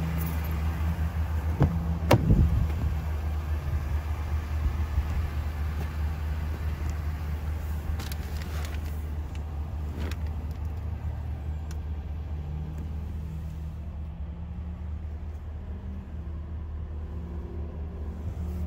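Chevrolet Silverado 2500 HD's 6.6-litre gas V8 idling with a steady low rumble. A couple of sharp knocks come about two seconds in, with a few lighter clicks later, and the sound turns duller near the end.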